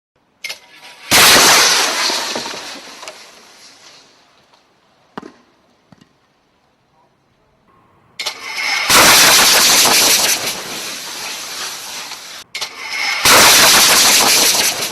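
High-pressure gas rushing out of a cylinder whose valve has broken off, with no excess flow valve to limit the flow. A sudden loud blast about a second in fades away over a few seconds, followed by a couple of faint knocks. From about eight seconds a loud sustained hiss sets in, dips briefly, and returns near the end.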